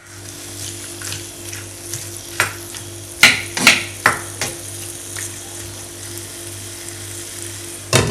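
Seasoned chicken gizzards sizzling in a pot on the stove as they start to cook in their own juices, with a spoon knocking and scraping against the pot, a cluster of sharp knocks about three to four seconds in and another near the end.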